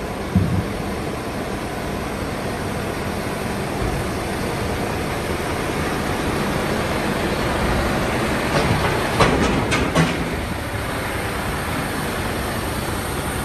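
Steady rumble of heavy diesel trucks idling, with a few sharp metallic clanks about nine to ten seconds in.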